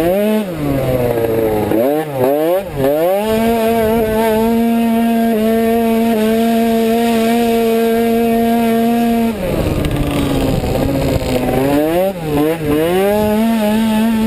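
Onboard sound of an automatic racing scooter's two-stroke engine under hard throttle. The note dips and rises several times in the first few seconds, then holds one steady high pitch for about six seconds. It turns rough and noisy for a second or two, then dips, rises and steadies again near the end.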